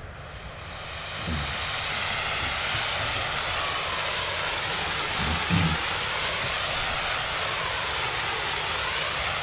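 A rotating firework wheel, its fountains driven round by black-powder drivers, hissing steadily. The hiss swells over the first couple of seconds as the fountains catch, with a couple of low thumps in the middle.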